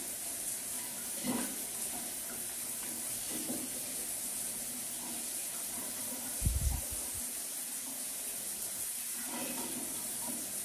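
Steady hiss of running water, with one short low thump about six and a half seconds in.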